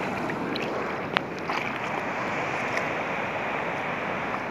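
Steady wash of shallow water, with light splashes from a puppy wading through it and one sharp click about a second in.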